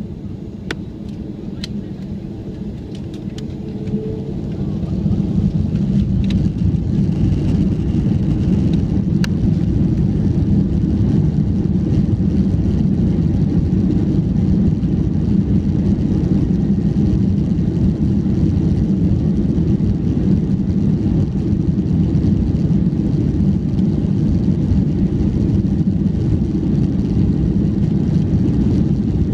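Airbus A330-200 jet engines and airframe heard from inside the cabin during the takeoff run: the rumble swells sharply about four to six seconds in as the engines spool up to takeoff power, then holds as a steady loud roar. A few sharp clicks or rattles sound in the first few seconds.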